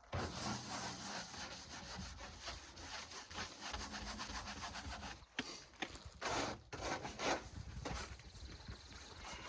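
Scrub brush scrubbing out a dirty shower surround: continuous scratchy scrubbing that starts suddenly, with a few harder strokes about six to seven seconds in.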